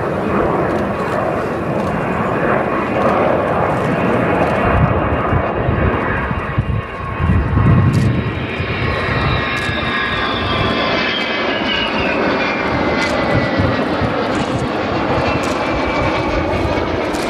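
Avro Vulcan delta-wing bomber's four Rolls-Royce Olympus turbojets, loud jet noise as it flies by. A deep rumble runs throughout, and a high whine that falls in pitch comes in during the second half as the bomber passes.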